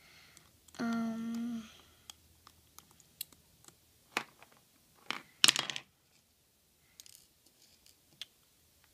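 A short steady hum from the child about a second in, then scattered light clicks and taps of a plastic crochet hook working rubber bands on a clear plastic Monster Tail loom. The loudest is a quick cluster of clicks about five and a half seconds in.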